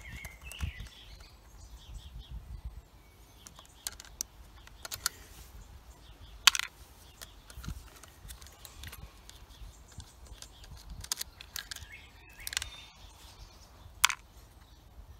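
Screwdriver and hand tools clicking and tapping on a Husqvarna 236 chainsaw's plastic housing as its screws and bolts are undone: scattered sharp clicks, the loudest about halfway and near the end. Birds chirp briefly at the start and near the end.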